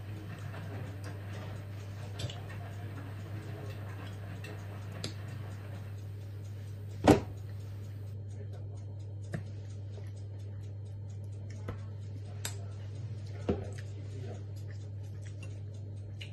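Mealtime sounds: a metal spoon clinking and scraping on a ceramic rice bowl and other light clicks of tableware, with one sharper click about seven seconds in, over a steady low hum.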